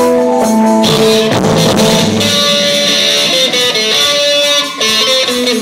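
Live pop band playing through a hall PA, with strummed guitar over drums, recorded on a cheap phone from the audience. Held chords give way about a second in to a fuller passage with drums.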